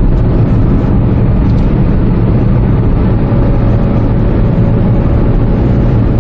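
Cabin noise of a 2013 Chevrolet Spark under way on a highway: a steady engine and road rumble, with a faint steady whine coming in about halfway.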